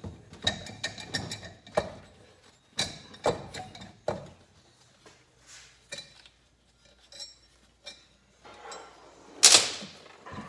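Irregular metal clinks and knocks as the cylinder head of a 1975 Kawasaki KZ400 engine is worked loose by hand against a binding gasket, with one louder clank near the end.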